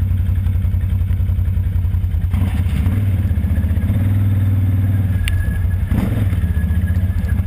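ATV engine running under throttle while riding, its note swelling a little around the middle. A brief sharp click about five seconds in.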